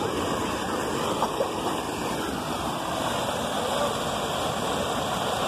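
Rushing water of a shallow river rapid pouring over rocks, a steady noise.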